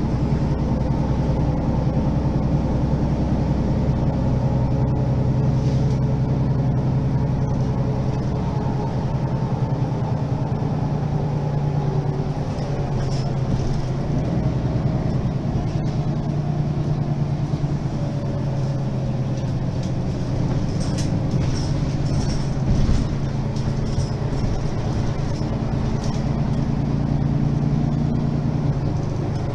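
Mercedes-Benz Citaro G articulated bus's diesel engine idling steadily while the bus stands still, with a few faint clicks in the second half.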